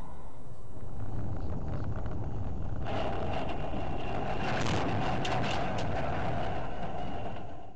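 Road and wind noise from the recording car approaching a level-crossing crash. About three seconds in the noise turns harsher, with scattered clicks and rattles.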